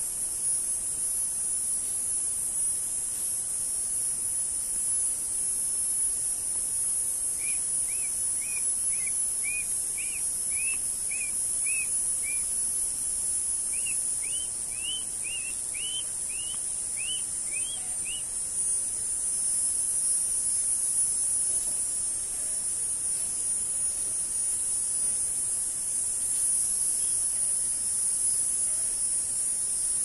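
A bird gives two runs of short, clear chirps at about two a second, each run lasting around four to five seconds, with the second run a little higher and faster. A steady high-pitched hiss runs underneath throughout.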